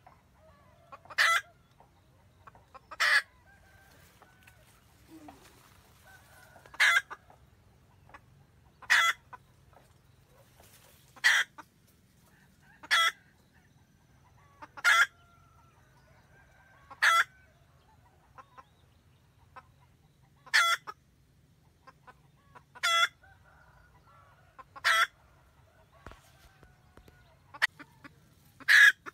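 A red junglefowl hen cackling to call the rooster: short, sharp calls repeated about every two seconds, with fainter calls between them.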